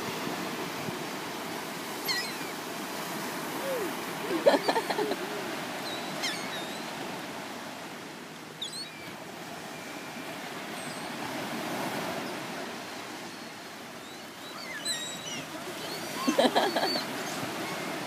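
Surf washing up on a sandy beach, a steady hiss that slowly swells and eases. Short pitched cries come through about four seconds in and again near the end.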